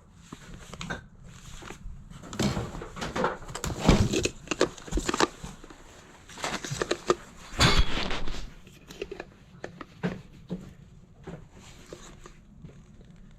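Boxes and stored items being rummaged through by hand: irregular rustling with knocks and clatters, the busiest stretches around four and eight seconds in, sparser near the end.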